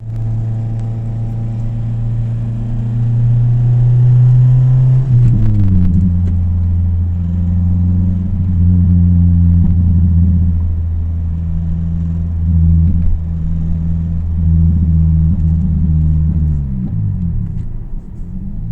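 Toyota Celica VVT-i four-cylinder engine held at steady raised revs, run to show a rattle that the owner hears above 2000 rpm. The engine note steps down about five seconds in, holds steady, then falls away near the end.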